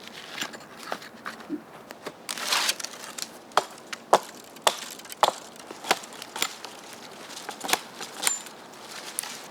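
Dry wood and forest debris cracking and crunching. It starts with scattered snaps and a longer crunch, then settles into sharp cracks at an even pace of about one every half second or so.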